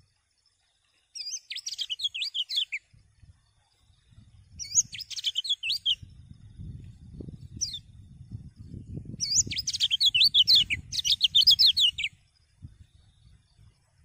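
Caged kecial kuning (yellow white-eye) singing in three bursts of fast, high twittering, the last and longest near the end. A low rumble runs underneath through the middle.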